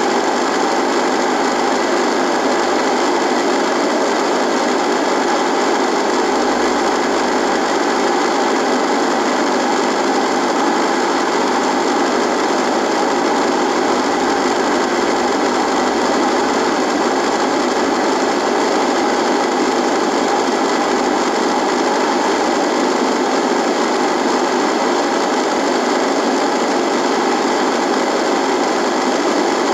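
Radio buzzing: a steady, unchanging static buzz and hiss from a radio.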